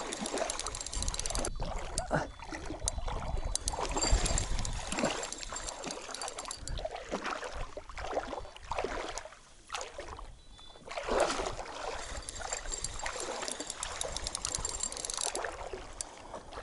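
Spinning reel being cranked in uneven spells while a hooked fish, a grass carp, is played in, with water sloshing and lapping around it.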